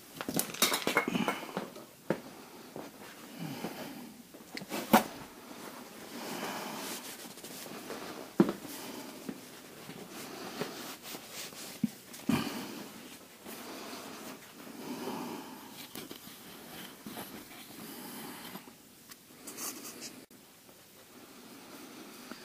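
Quiet handling noises in a garage: faint rustling and shuffling, broken by a few scattered sharp clicks and knocks of tools or parts being moved.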